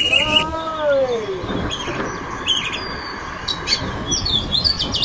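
Birds chirping in short, high calls from about two seconds in, over a steady hiss of wind. At the start there is one longer, lower call that rises and then falls.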